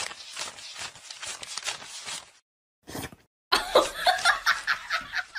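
Paper banknotes flicked through rapidly by hand as they are counted: a crisp, fast run of rustling snaps. After a short pause, a person laughs and talks near the end.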